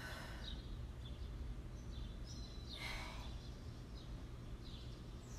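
A woman's breathing while exercising: a few short breaths through the mouth, the strongest about three seconds in, over a steady low hum.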